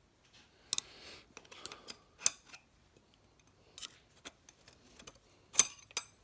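Light metallic clicks and clinks of steel clutch plates and the clutch drum of a John Deere 310D reverser forward clutch pack being handled during assembly. The clicks are sharp and irregularly spaced, the loudest near the end.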